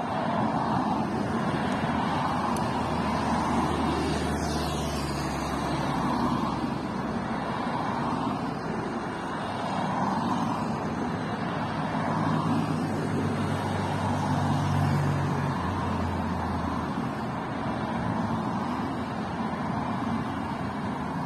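Cycling team support cars, bicycles on their roof racks, driving past one after another: engine hum and tyre noise on asphalt swelling and fading as each car goes by.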